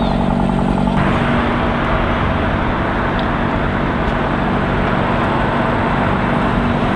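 Blackpool heritage double-deck tram running along the tramway: a steady low hum under an even rumbling noise that swells about a second in.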